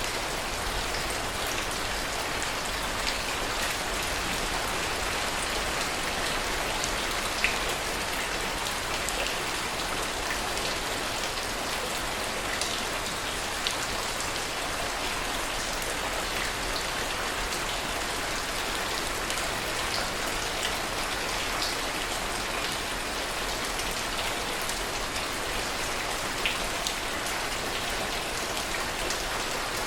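Steady heavy rain, an even hiss with a few louder single drop hits standing out now and then.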